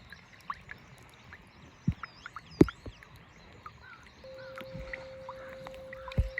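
A steady pure 528 Hz tone fades in about two-thirds of the way through, over scattered sharp clicks and knocks and faint high chirps from the seaside recording.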